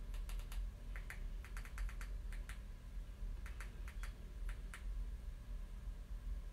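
Fingers tapping on a handheld phone, about twenty light, sharp clicks in irregular quick clusters, like typing.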